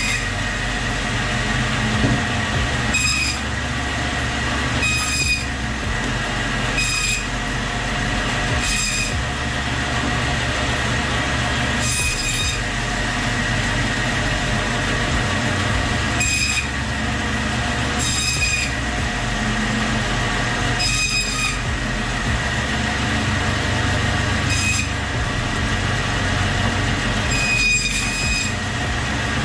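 Meat bandsaw running with a steady hum, its blade giving a short high-pitched squeal each time it cuts through goat skull bone, about ten squeals a couple of seconds apart.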